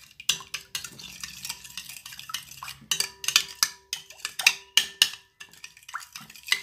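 A metal fork beating a runny mix of eggs, milk, butter, salt and sugar in a bowl, clicking against the bowl's side in quick, irregular strokes. The strokes are loudest about three to five seconds in and pause briefly just after.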